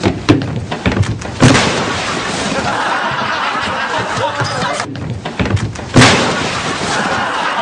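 Heavy thuds and crashes of a man tumbling through a breakaway set into a pile of broken panels: sharp impacts near the start and about a second later, the loudest about six seconds in, with a dense rustling noise in between.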